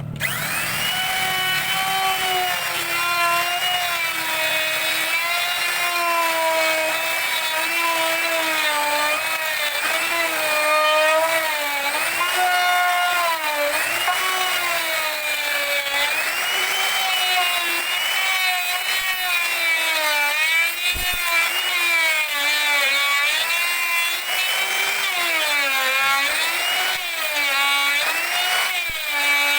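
Electric woodworking power tool starting up and running through a long cut in wood. Its high motor whine dips and recovers again and again as the cut loads it.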